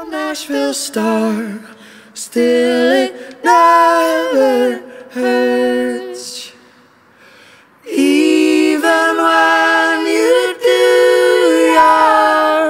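Singing: a high voice sings a melody in two phrases with long held notes, a short pause in between, and no accompaniment to be heard.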